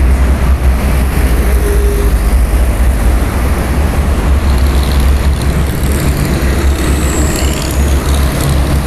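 Steady, loud noise of heavy traffic on a toll road, a dense unbroken rumble strongest in the low end.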